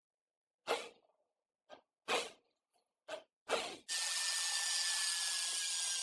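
Six short scraping or rubbing strokes of a hand tool on the old sewing machine's metal parts. Near the end a steady hissing whir starts abruptly, with a faint high tone that slowly drops.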